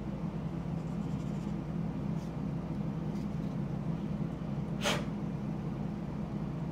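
A steady low hum, with faint scratching of a fingernail buffing pad rubbed over a plastic model-kit part. One short, sharp hiss comes about five seconds in.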